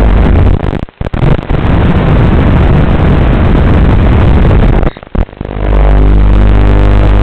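FPV racing quadcopter's motors buzzing loudly, the sound dropping away sharply twice, about a second in and again about five seconds in, then picking back up.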